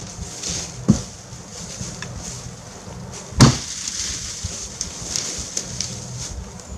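Footsteps crunching through dry leaves and grass on a slope, with two sharper thumps: a small one about a second in and a louder one midway. A low steady hum runs underneath.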